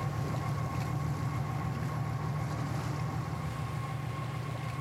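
Boat engine running steadily: a low drone with a faint steady whine above it.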